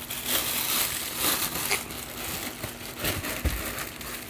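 Packaging rustling and crinkling as a subwoofer is handled and unwrapped, with a few soft bumps.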